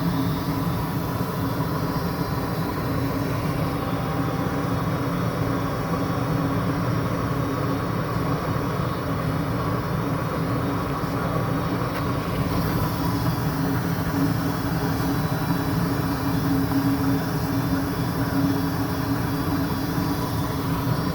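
Furnace with its burners lit and firing: a steady roar of flame and blower with a constant low hum.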